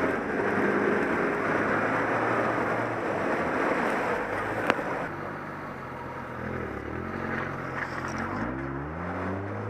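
Off-road 4x4's engine working under load under a dense wash of noise, with one sharp knock about five seconds in. After that the engine note comes through more clearly and revs up and down near the end.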